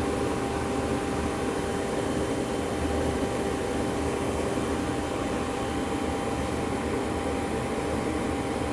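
Sliding table saw with a dado stack mounted, running steadily with a constant hum and a thin whine; one of its tones drops out about halfway through.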